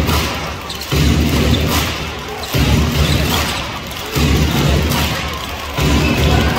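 Arena sound system playing music with a heavy bass beat: one deep thump about every second and a half, each fading away before the next.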